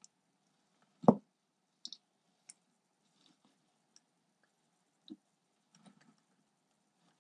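Faint, scattered clicks and ticks of bark-chip substrate shifting as a garter snake works a live toad down, with one louder, dull thump about a second in.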